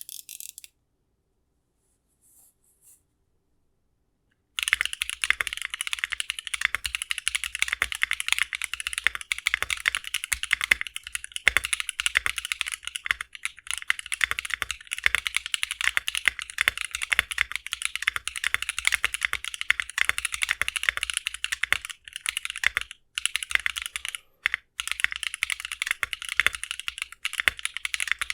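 Fast typing on a Mode Envoy keyboard fitted with Lichicx Torch linear switches: a dense, steady stream of crisp, higher-pitched keystrokes. The typing starts about four and a half seconds in, after a near-silent pause, and halts briefly a couple of times near the end.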